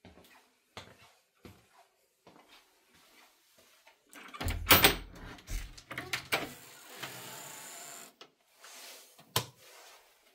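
Footsteps and soft knocks, then a pantry door opened about halfway through with a loud thump and a scraping rustle lasting a few seconds, and one more sharp click near the end.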